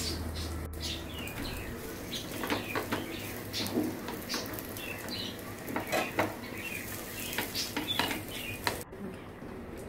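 Egg-dipped bread slices frying in butter in a nonstick pan, with a soft sizzle, while a spatula scrapes and taps against the pan at irregular moments as the slices are turned. The sound drops out briefly near the end.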